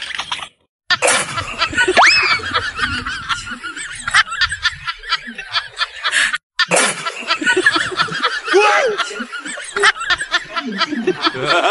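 Laughter, snickering and chuckling, broken by two short gaps, near the start and about six seconds in. A single rising whistle-like glide sounds about two seconds in.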